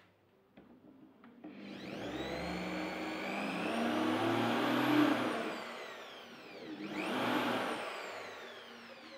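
Cordless drill running into a wooden cabinet panel: one long run from about a second and a half in, its whine climbing in pitch and then falling away, and a second shorter run a little later.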